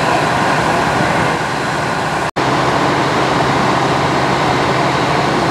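Antique fire engines running their pumps, their engines working steadily under load while they throw water from their deck guns. The sound cuts out for an instant a little over two seconds in.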